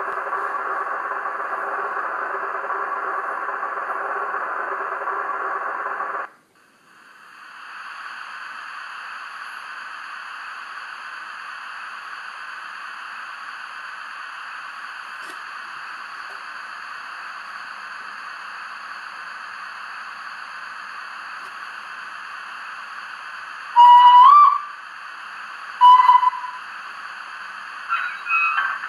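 Sound decoder in a Bachmann OO-gauge B1 class model steam locomotive, playing Olivia's Trains B1 sound file through its small speaker while the engine stands. A loud steady hiss cuts off about six seconds in, then a quieter steady hiss runs on. Near the end come two whistle blasts: the first longer and rising in pitch, the second short.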